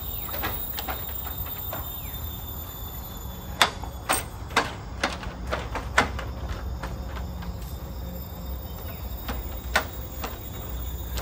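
Forest insects droning steadily at a high pitch over a low rumble, with a handful of sharp knocks, most of them about four to six seconds in and one more near the end.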